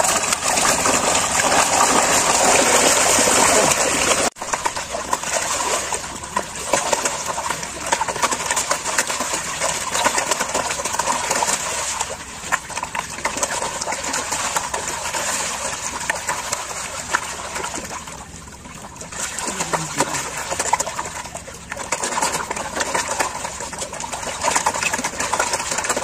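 Fish in a feeding frenzy thrashing and splashing in shallow water, a continuous crackling churn of many small splashes, broken off sharply for an instant about four seconds in.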